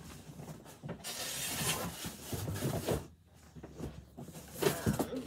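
Rummaging inside a large cardboard shipping box: a couple of seconds of rustling and scraping of cardboard and packing, a brief lull, then a few sharp knocks and bumps as a boxed action figure is pulled out.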